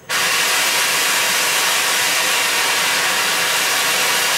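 Oxy-fuel cutting torch blasting its cutting-oxygen jet: a loud, steady hiss that starts suddenly as the lever is pressed. The jet burns through the red-hot steel and throws sparks.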